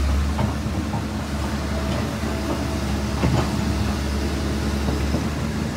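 An engine running steadily with a low drone.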